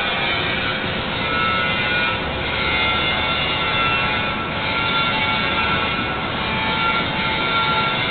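Plasma cutting torch of an ESAB Numorex NXB 8100 CNC machine cutting: a steady, loud hiss with several high, steady tones running through it.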